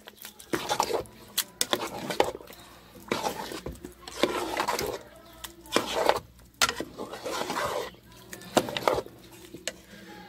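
A metal ladle stirring thick sauce in a metal cooking pot, scraping and knocking against the pot in irregular strokes.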